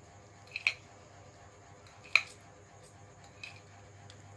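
Metal fork and spoon clinking against a glass plate while mixing noodles: three sharp clinks, the middle one loudest.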